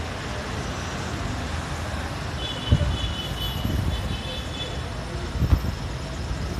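Steady distant city traffic rumble, with two low thumps, one a little under three seconds in and one near the end, and a faint high-pitched chirping in the middle.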